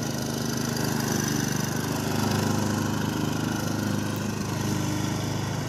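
Small petrol engine of a walk-behind rotary lawn mower running steadily, a low even hum.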